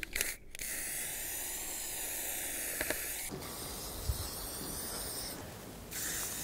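Aerosol spray-paint can hissing in long steady sprays as paint is put on the white cut ends of terrace boards.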